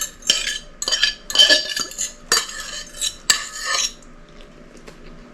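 A utensil scraping and clinking against a bowl in about five strokes, as ingredients are scraped out of a container into the bowl; it stops about four seconds in.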